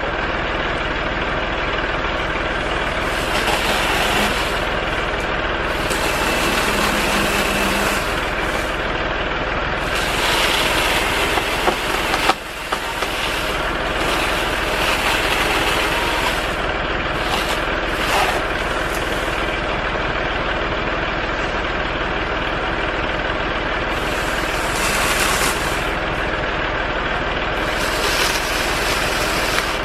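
A heavy engine running steadily at idle, with a brief drop in level about twelve seconds in.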